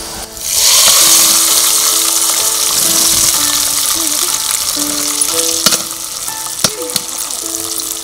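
A hot oil tempering of peanuts, cashews, dal, red chillies and spices is poured into a pot of cooked rice and moong dal pongal. It sizzles loudly from about half a second in, then slowly dies down, with a couple of sharp metal clicks of pan against pot.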